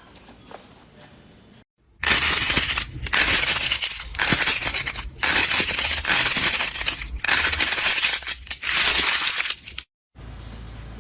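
Crunchy slime being squeezed and pressed, a loud, dense crackling crunch in several long bursts with short dips between them, starting about two seconds in and cutting off sharply near the end.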